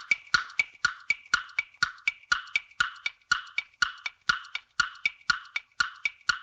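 Quiz countdown timer sound effect: a wooden tick-tock repeating steadily about four times a second.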